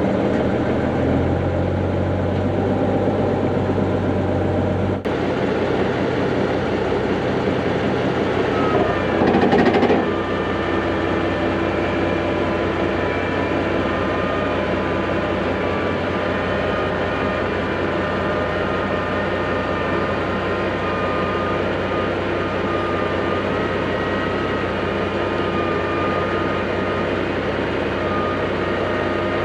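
Heavy diesel equipment engine running steadily under work, with a brief louder surge about a third of the way in, followed by a steady high whine over the engine.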